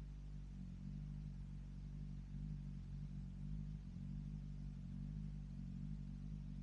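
A 2022 BMW S1000RR's inline-four engine, fitted with an M4 aftermarket exhaust, running steadily: an even low note that neither rises nor falls, with no revving.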